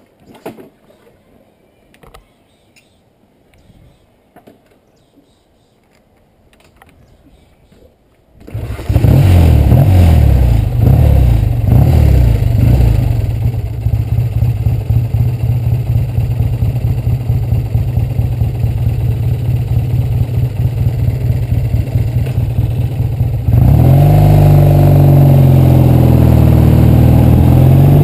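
1968 Triumph Bonneville's 650 cc parallel-twin engine: after a few faint clicks it starts about eight seconds in, is revved a few times, and settles to a steady idle. Near the end it gets louder with rising and falling pitch as the bike pulls away under acceleration.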